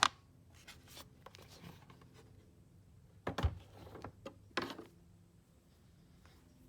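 Small plastic clicks and rubbing from handling a Road Glide inner fairing vent and its push-button latch: a sharp click at the start, then two short bursts of clicking about three and a half and four and a half seconds in.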